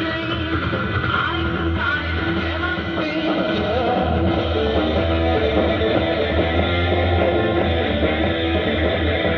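Rock music with guitar, received over a shortwave radio broadcast, so it sounds thin with no high treble.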